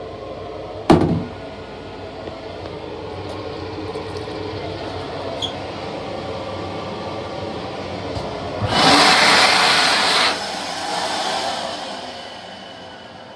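A sharp knock about a second in, then a sink tap running. Near the end a stainless-steel hand dryer blows loudly for about a second and a half, then winds down and fades with a faint whine.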